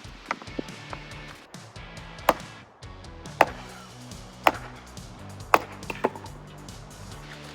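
Axe head of a multitool chopping and splitting small firewood: sharp wooden strikes roughly once a second, four of them loud, over background music.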